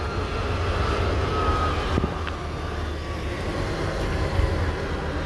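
Steady low rumble of a Scania coach bus's engine and road noise, heard from inside the cabin while driving, with a faint high whine over it and a brief click about two seconds in.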